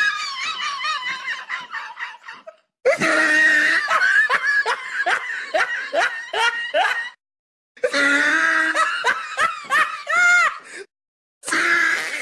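High-pitched laughter played on a loop: each round opens with a held high cry and breaks into a quick run of short 'ha-ha' bursts, then cuts off and starts again every three to four seconds.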